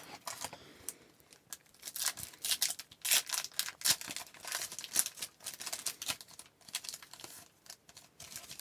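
Crinkling and tearing of a trading card pack's wrapper as it is opened, with the rustle of the cards being handled.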